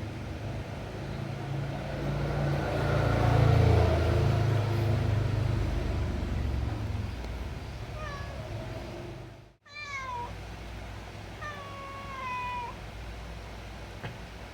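A hungry domestic cat meowing three times in short, slightly falling calls in the second half. Before the meows a low rumble swells up and fades away, and it is the loudest sound.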